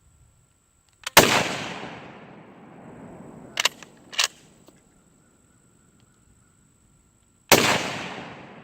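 Swiss K31 rifle firing two shots about six seconds apart, each 7.5×55mm report trailing off in a long echo. Between the shots come two sharp metallic clicks half a second apart, the straight-pull bolt being worked back and forward to chamber the next round.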